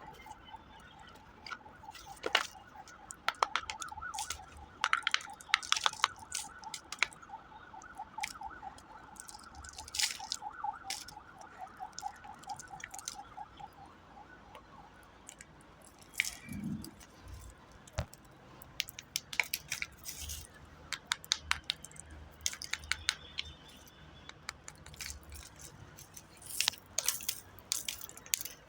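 Slate pencils being crushed into powder: irregular sharp crunches and snaps, a few at a time. A faint pulsing two-note tone, like a distant alarm or siren, runs behind them for the first half.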